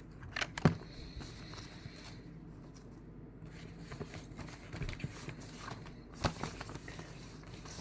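Rustling and handling noises from cross-stitch kit materials being moved about, with a few sharp clicks: two about half a second in and another about six seconds in.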